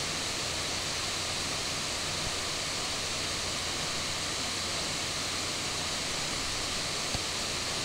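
Steady background hiss with a faint low hum: the noise floor of the room and recording microphone.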